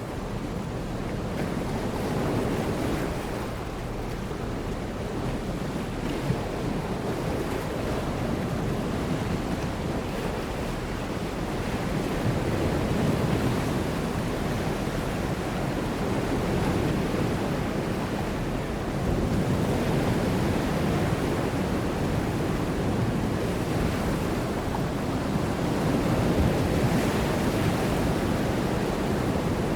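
Ocean surf breaking, a steady wash of noise that swells and eases as the waves come in.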